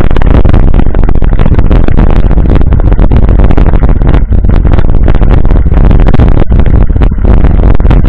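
Wind buffeting an action camera's microphone while a mountain bike rattles over a dirt road: a loud, overdriven rumble with constant clatter.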